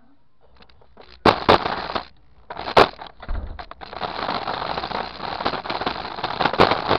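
Scooter wheels rolling over a concrete sidewalk: a loud rough rattle with sharp clacks, starting about a second in, dropping briefly, then running on with many small clicks.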